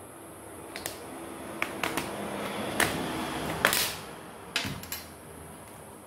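Plastic bottom cover of an ASUS VivoBook L203 laptop being pried off: a series of sharp clicks and snaps as its clips let go, with plastic rubbing and scraping between them. The loudest snap comes a little past halfway.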